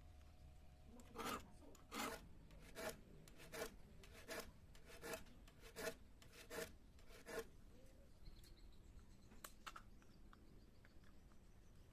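A file sharpening the teeth of a small handsaw: about ten scraping strokes, roughly one every three-quarters of a second, stopping about seven seconds in, followed by a few light clicks.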